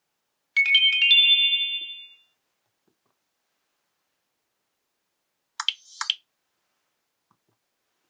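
Nokia E63 built-in alert tones: a bright chime of several high notes struck together, fading out over about a second and a half, then a few seconds later a short double blip.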